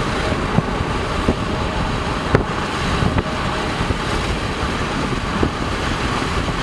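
Steady road and wind noise of a moving car heard from inside, with a few light clicks scattered through it.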